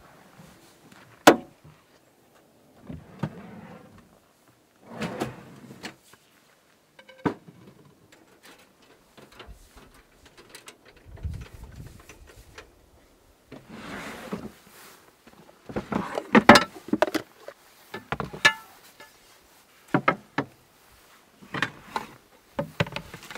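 Scattered knocks, clicks and rustles of gear being handled at the back of a Jeep Wrangler: the tailgate table, rear hatch and a wooden storage drawer being opened and set up. A sharp knock comes about a second in, and a busier run of clatters falls in the middle.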